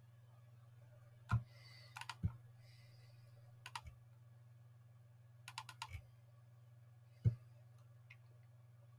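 Computer mouse clicking while browsing folders, in single sharp clicks and quick runs of two to four, over a steady low hum.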